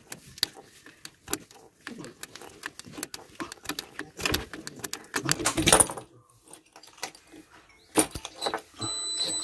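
Scattered clicks and rattles of hands working a knurled knob on the bus's diesel engine, with a louder rustle near the middle. Near the end keys jangle in the ignition, and just after a sharp click the dashboard warning buzzer starts beeping in a high, on-off tone, a sign that the brake air pressure is very low.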